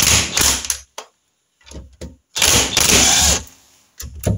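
DeWalt 18V cordless impact driver with a thin quarter-inch socket hammering at a con rod big end nut to undo it, in several bursts, the longest about a second each, with the motor whining under the blows.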